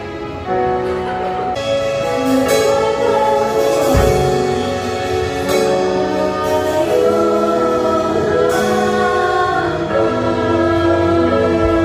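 Church worship band rehearsing a slow song live: singers holding long notes through microphones over keyboard, electric guitar and drums.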